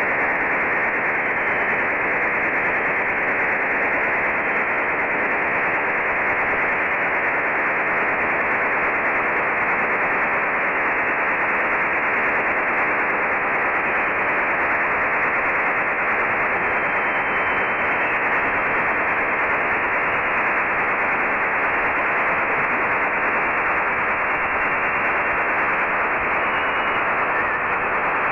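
French Navy STANAG 4285 HF data transmission demodulated in upper sideband on a software-defined radio: an unbroken, steady hiss-like rush of modem signal with a sharp top edge. This is the 2400-baud PSK modem carrying a repeating test message.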